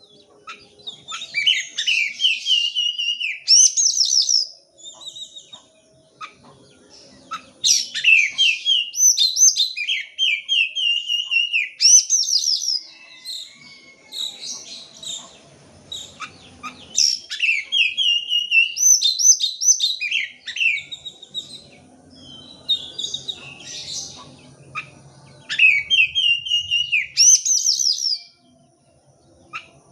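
Oriental magpie-robin (kacer) singing in four bursts of rapid, varied whistled phrases, with pauses of a few seconds between bursts.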